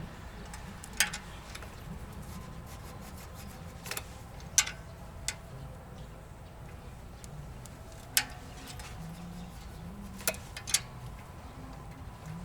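Scattered sharp clicks and knocks, about seven at irregular intervals, over a low steady background rumble.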